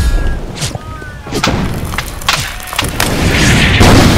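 Battle soundtrack of an action scene: several sharp gunshots in the first three seconds, then a loud explosion building up about three seconds in and carrying on to the end.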